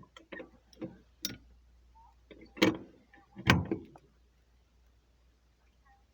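Clicks and knocks from a fire alarm device's cover being opened and handled: a few light clicks, then two louder knocks about a second apart around the middle.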